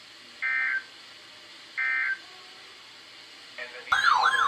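Two short bursts of EAS/SAME digital data tones, about 1.4 s apart: the end-of-message signal closing a NOAA Weather Radio alert, over a faint hiss. About four seconds in, a loud warbling alarm tone begins, sweeping up and down about three times a second.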